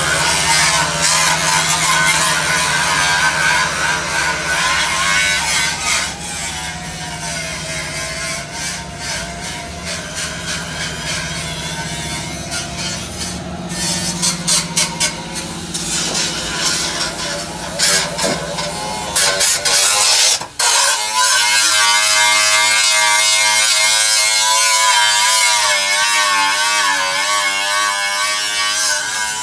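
A power tool's motor running and buzzing, its pitch wavering as it works under load. It breaks off briefly about two-thirds of the way in, then carries on at a higher pitch.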